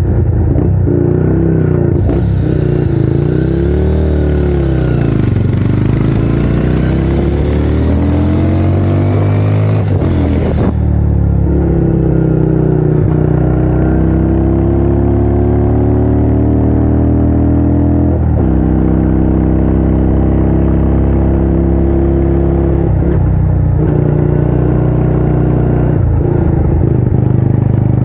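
Italika 250 V-twin motorcycle engine running. Its pitch swings up and down with the throttle, then climbs and drops abruptly twice, about ten and eighteen seconds in, with a few smaller dips near the end.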